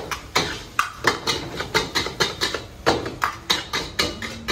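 Metal ladle and spatula knocking and scraping against a wok while fried rice is stir-fried, a fast run of about four clacks a second.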